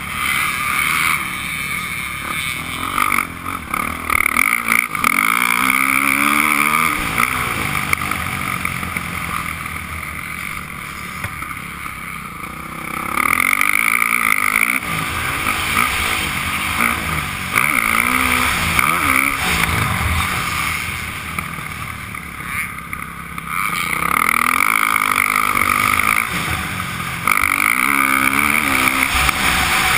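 Dirt bike engine heard from a helmet-mounted camera, revving hard and easing off again and again as the throttle is worked, with longer throttle-off dips near the middle and about two-thirds through.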